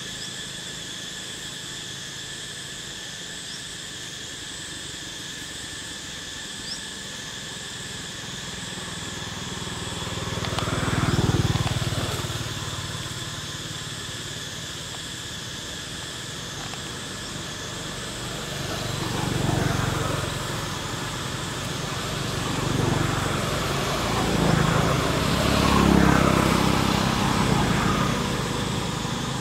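Vehicles passing by about four times, each one swelling and fading over a couple of seconds, over a steady high-pitched whine.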